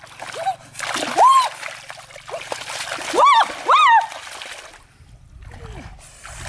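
Shallow muddy pond water splashing and sloshing as fish thrash and are grabbed by hand. A few short high-pitched cries, each rising and falling, come over the splashing; they are the loudest sounds.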